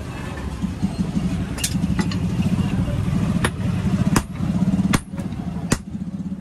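Hand hammer striking red-hot steel of an ax on an anvil: a series of sharp blows, coming at a steady pace of about one every three-quarters of a second in the second half. Under the blows runs a steady low motor drone.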